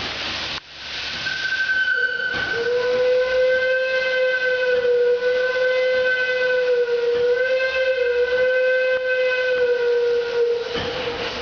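Steam whistle on the boiler blown in one long blast of about nine seconds. It opens with a rush of steam hiss before the tone sounds, and the pitch wavers slightly while it is held.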